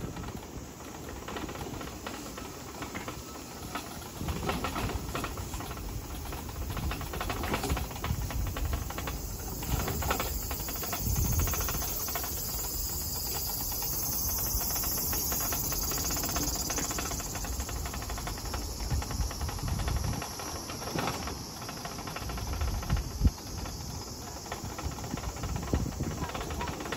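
Cicadas droning in summer heat, a steady high shrill hiss that swells in the middle, over irregular low rumbling noise.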